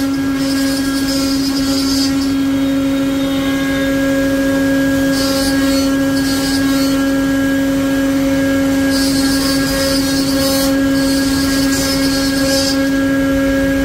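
CNC wood-carving router running: the spindle gives a steady high whine, and a hissing cutting noise comes and goes every second or two as the bit works through the wood panel.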